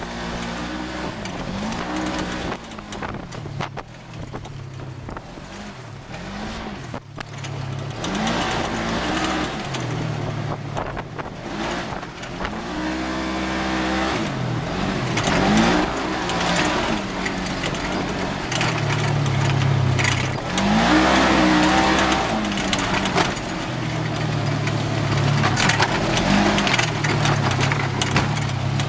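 Polaris RZR XP side-by-side's engine revving up and easing off over and over while driving a rough dirt trail, with tyre, gravel and wind noise underneath.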